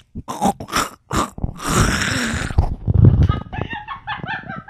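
A person making goofy noises with their voice: several sharp bursts, a long hissing breath, a deep low sound about three seconds in, then short, high warbling cackles toward the end.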